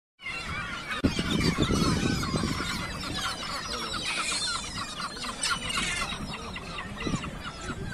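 A crowd of birds calling over one another in many short, overlapping calls, with a sharp knock about a second in.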